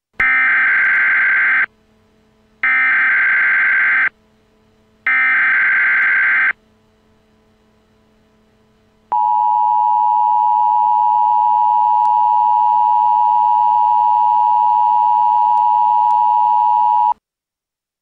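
Emergency Alert System header tones: three bursts of screeching digital SAME data, each about a second and a half long, then, after a short pause, the steady two-tone EAS attention signal held for about eight seconds before it cuts off abruptly.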